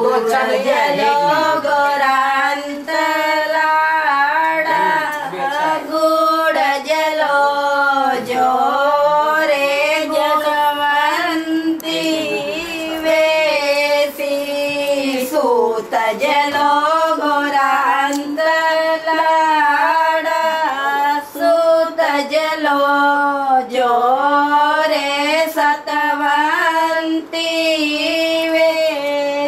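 A woman singing a slow melody with long held, ornamented notes, with no drums or bass beneath it.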